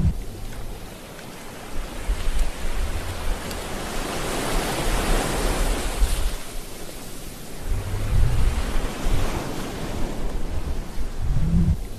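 Ocean surf: waves washing in and breaking on a rocky shore, swelling to a louder wash in the middle, with deep rumbles of breakers later on.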